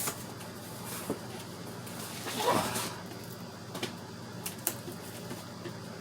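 Handling noises from PC parts and their packaging: a few light clicks and knocks, and a brief scrape or slide about two and a half seconds in, over a steady low hum.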